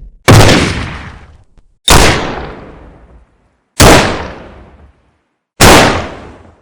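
Four heavy gunshots, fired singly at about one every two seconds, each a sharp crack followed by a booming echo that fades over about a second.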